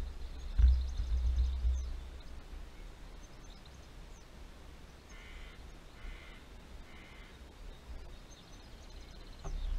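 Wind buffeting the microphone, then three faint, short bird calls about a second apart.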